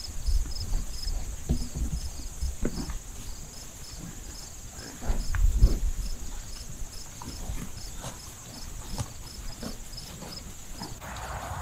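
Crickets trilling steadily, with a high chirp repeating about three times a second. Over them come irregular low thumps and rustles of cattle walking through dry pasture grass, loudest about five seconds in.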